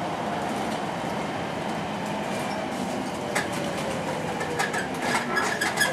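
Inside a Volvo B10M single-deck bus on the move: steady engine and road noise, with a faint whine that slowly falls in pitch. Near the end, a quick cluster of sharp rattles and clicks from the bus body.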